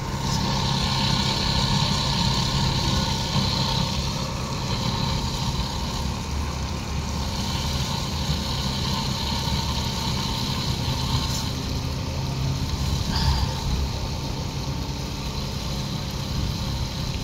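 A steady low hum with a few faint steady tones above it, unchanging throughout.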